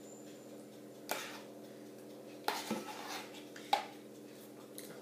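A metal spoon clinks against a glass mixing bowl as spoonfuls of cream are added to the eggs. There are a few sharp clinks spread a second or so apart.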